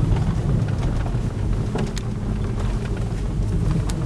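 Vehicle on the move: a steady low engine and road rumble, with a few light knocks and rattles, one about two seconds in and another near the end.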